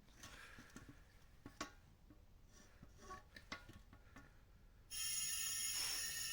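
Faint scattered clicks and knocks like handled tools, then music with held sustained tones starts abruptly about five seconds in and is the loudest sound.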